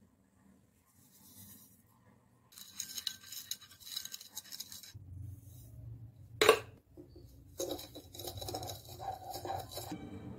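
Sugar and dry yeast being tipped into a small glass bowl of water, then a spatula stirring and scraping against the glass, with one sharp clink about six and a half seconds in.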